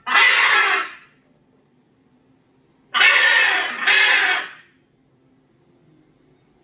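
Blue-and-yellow macaw giving loud, harsh squawks, calling for its owner: one at the start, then two back-to-back about three seconds in.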